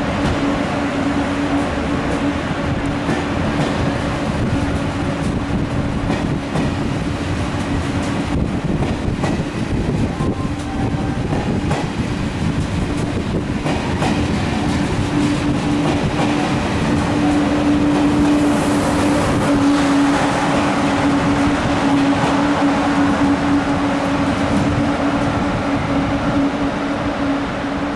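A TGV high-speed train of two coupled trainsets running past on the rails, a steady rumble with a steady low hum over it. It swells slightly a little past halfway.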